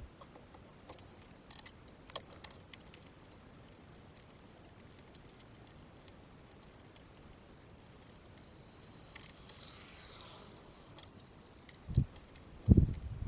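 Small metal parts and tools being handled: scattered light clicks and clinks, a brief soft hiss about nine seconds in, and two low thumps near the end.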